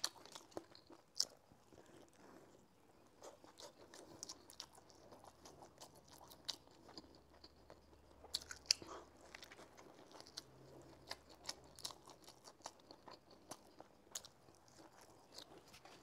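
A person chewing a mouthful of soft spring pancake roll filled with shredded potato: quiet close-up chewing with scattered small clicks and smacks.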